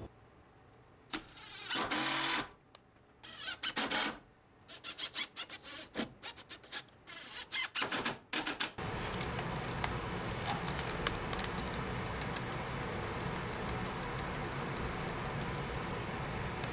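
Cordless drill-driver run in short bursts, driving screws into wooden studs, with clicks and rattles between the bursts. From about nine seconds on, a steady even noise carries on.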